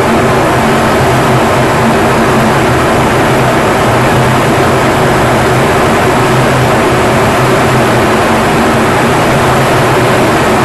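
In-cockpit noise of a Turkish Stars NF-5 fighter jet in flight: the steady, loud rush of its jet engines and airflow over the canopy, with a few low steady tones underneath.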